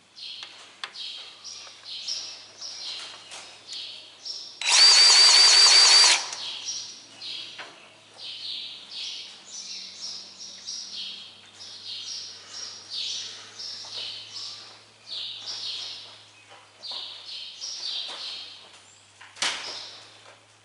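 A power tool's electric motor runs once for about a second and a half, loud against the background, while birds chirp steadily throughout. A single sharp click comes near the end.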